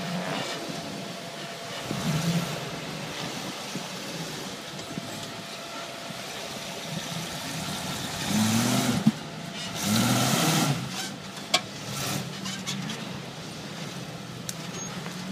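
Rock crawler's engine running at low speed as it climbs over rocks, revved up and back down twice, about eight and ten seconds in. Two sharp knocks stand out, one just after the first rev and another about a second after the second.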